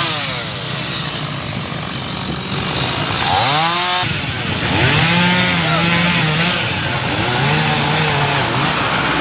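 Chainsaw running and revving up and down repeatedly, with a sharp rev a few seconds in, as it cuts through a wind-felled tree.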